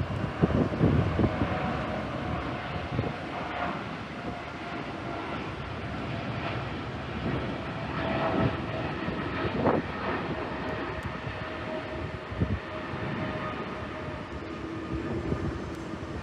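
Wind buffeting the microphone in irregular gusts, strongest in the first two seconds and again about halfway through, over a steady distant engine whine.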